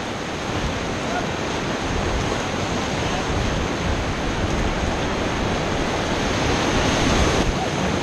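Whitewater river rapids rushing and churning around a raft, a loud, steady wash of water noise that swells a little near the end.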